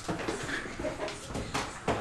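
Light handling noises on a tabletop: a few small knocks and rustles, with a sharper knock near the end.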